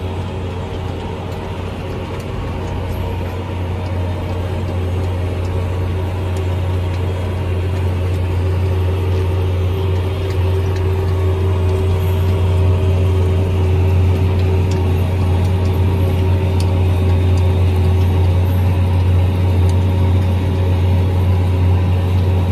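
Tractor engine running steadily under load while pulling a planter, heard from inside the cab: a steady low drone with a few steady tones over it, growing a little louder over the first dozen seconds.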